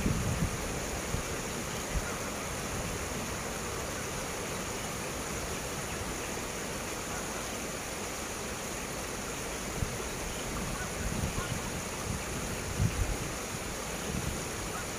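Steady, even rumble of a freight train hauled by two diesel locomotives, a D19E and a D11H, pulling away uphill in the distance. Wind buffets the microphone in a few low puffs, near the start and again a little after the middle.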